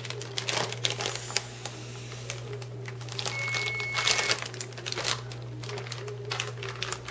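Plastic zip-top bag of chicken in marinade crinkling and rustling as it is pressed shut and handled, with irregular small clicks as the zip seal is closed.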